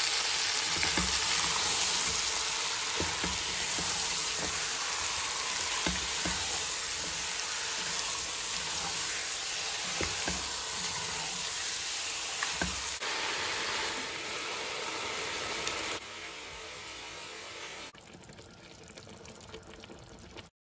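Chicken pieces sizzling in hot oil in a steel pot, with occasional low knocks and scrapes as the pot is stirred. The sizzle steps down in loudness over the last several seconds.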